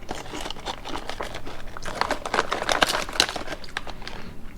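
Crinkling of a potato chip bag as a hand rummages in it for another chip, in a dense run of crackles that is busiest in the middle.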